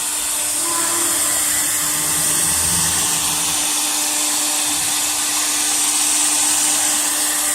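Air-cooled spindle of a wood CNC router running steadily as it carves MDF: a constant high rushing whine with a low steady hum underneath.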